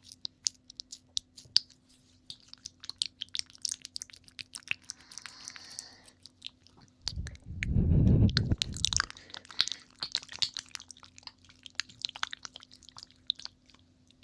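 Close-up ASMR mouth sounds: a stretch of quick wet clicks and smacks of licking at the microphone, with one loud breath blown onto it about seven to nine seconds in.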